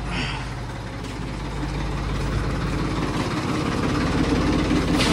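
An engine or heavy motor running steadily with a low hum, growing a little louder about a second and a half in.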